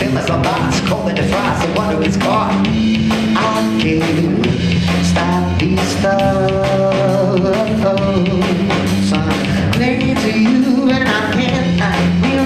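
Live band music: a drum kit keeping a steady beat under guitar, with a voice singing held notes.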